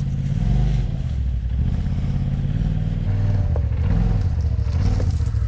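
Side-by-side UTV engine idling with a steady low hum.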